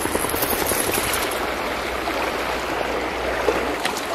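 Shallow river running over rocks, a steady rush of water, with a dog splashing through the water a few times near the end.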